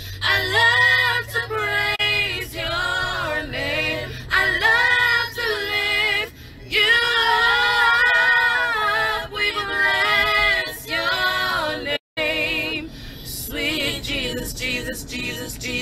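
A woman singing a melody in phrases with held, wavering notes and little or no instrumental backing, cut by a brief dropout about twelve seconds in.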